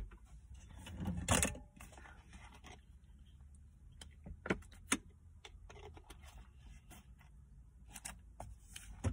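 Thin plastic water bottle being handled and drunk from: a short rustle about a second in, then a few sharp crinkles and clicks of the plastic, with more clicks as the bottle is handled again near the end.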